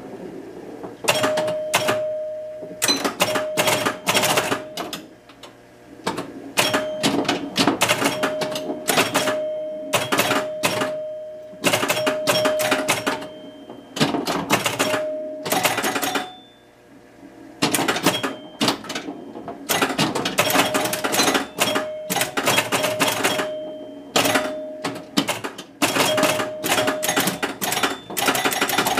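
Electromechanical Williams Fun Fest pinball machine in play: rapid bursts of clacking from its score reels, relays and coils as points score, with short ringing tones among the clacks. There is a brief lull about halfway through.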